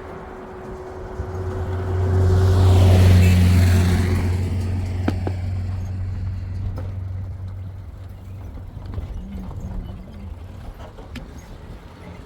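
A motor vehicle passes close by: a low engine hum and road noise swell to a peak about three seconds in, then slowly fade away. A few faint knocks follow.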